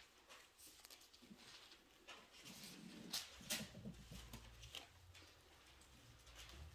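Faint rustling and soft clicks of Bible pages being turned, scattered through the pause, the loudest a little past the middle.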